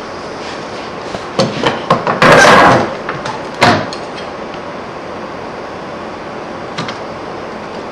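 A wooden holding jig handled on a wooden workbench: a few light knocks, a short scraping slide of wood on wood, then one sharp knock as it is set down.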